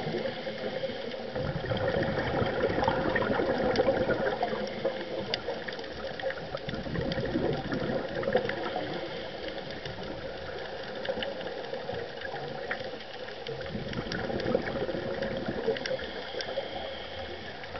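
Underwater sound of scuba breathing: the regulator's exhaled bubbles gurgling and rushing, muffled, swelling and fading every few seconds.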